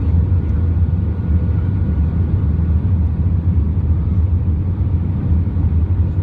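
Steady low rumble inside the cabin of an Airbus A320 on final approach, the engine and airflow noise heard from a window seat over the wing, with a faint steady whine above it.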